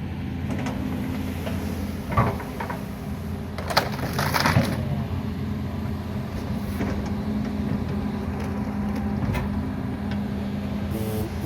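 Excavator's diesel engine running steadily, with a few short knocks or clanks about two and four seconds in.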